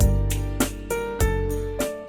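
Background music: plucked or struck instrument notes over a bass line, a new note every half second or so.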